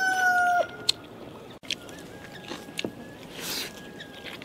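A rooster crowing: the tail of one long, held call stops about half a second in. After it only faint sounds remain, with a brief slurp of thin rice porridge from a bowl near the end.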